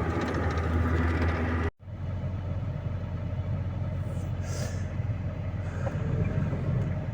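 Engine of a snow-clearing vehicle running steadily at work, a low even hum. The sound cuts out abruptly for a moment a little under two seconds in, then the engine noise continues.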